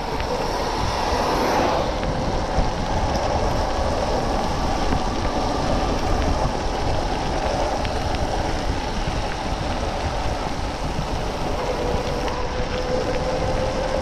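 Steady road noise from riding a Spark Cycle Works Bandit electric moped on a wet road: wind buffeting the chest-mounted microphone and tyres hissing on the wet surface. Under it runs a faint electric motor whine, which rises slightly in pitch near the end.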